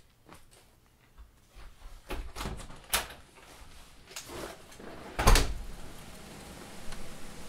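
A door being worked: clicks of the latch around three seconds in, then the door shutting with one heavy thud a little after five seconds. A steady hiss follows.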